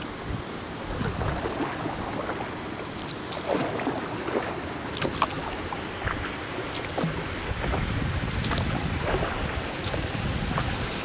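Water splashing and dripping in small irregular splashes around a kayak being paddled, over a steady wash of sea water and wind rumble on the microphone.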